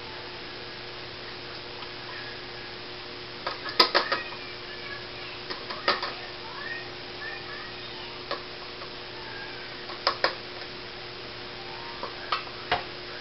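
Metal saucepan knocking and clinking against a plastic funnel set in a glass bottle as the last of the thick chocolate syrup is tipped out: a quick cluster of knocks about four seconds in, the loudest, then single knocks, a pair about ten seconds in and two more near the end, over a steady faint hum.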